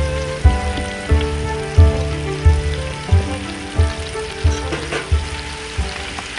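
Background music with a steady beat, about one beat every two-thirds of a second, laid over the sizzle of rabbit pieces and onions frying in olive oil in a cast-iron Dutch oven.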